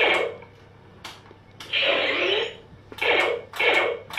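Nerf Laser Ops Pro AlphaPoint laser-tag blaster playing its electronic sound effects through its small speaker: four short electronic zaps, the second longer with a sliding pitch.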